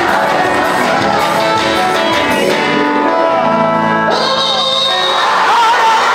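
Church worship music with singing, at a steady loud level; about four seconds in, it changes to voices shouting and calling out over the music.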